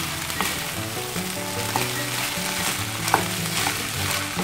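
Egg fried rice sizzling in a frying pan as it is stir-fried with a wooden spatula, with a few sharp clacks of the spatula against the pan.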